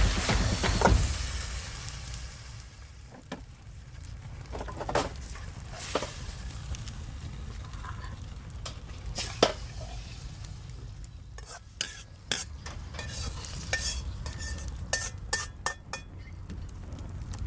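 Sweet-and-sour pork sizzling in a wok as it is stirred, with a metal utensil clicking and scraping against the pan. It is loudest in the first two seconds, and the clicks come thickest near the end.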